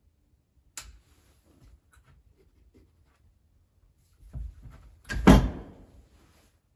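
Metal hand tools and hydraulic cylinder parts handled and set down on a wooden workbench: a sharp click about a second in, a few light knocks, then a thud and a louder clatter about five seconds in.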